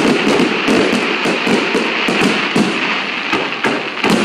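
Aerial fireworks bursting overhead: a dense, rapid run of sharp pops and crackles with a louder bang near the end.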